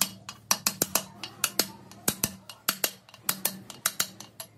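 Ratchet wrench clicking in short runs of two to four sharp metallic clicks, as a socket on a long extension runs down a bolt on a truck gearbox's bearing retainer plate.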